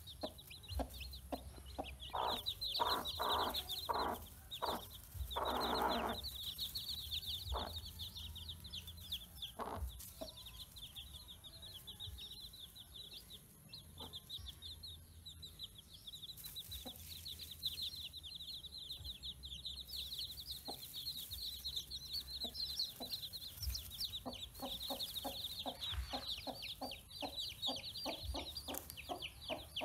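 Newly hatched chicks peeping without pause, many short high-pitched falling cheeps overlapping. A hen clucks in quick repeated low pulses under them near the start and again near the end.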